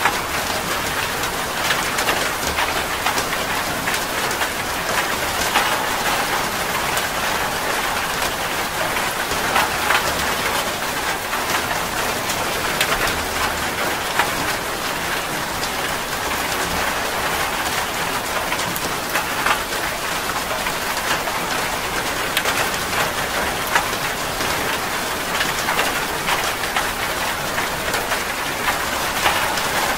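Steady rain falling, with many individual drop hits standing out from the dense wash.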